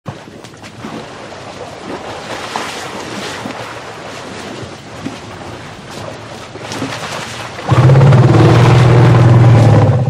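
Small herd of African elephants drinking at a pool: soft water sloshing and small splashes. About three-quarters of the way in, an elephant gives a loud, low-pitched call lasting about two seconds.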